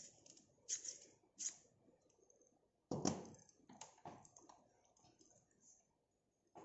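Handling noise from the parts of a small LED ring-light kit: several sharp plastic clicks as a pink plastic phone clip is fitted, with a louder knock about three seconds in and a few more clicks as the telescopic metal stand is handled.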